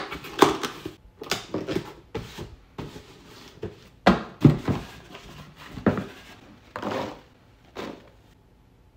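Cardboard shipping box being folded into shape by hand: a run of scrapes, creases and knocks of cardboard, loudest about four seconds in, dying away near the end.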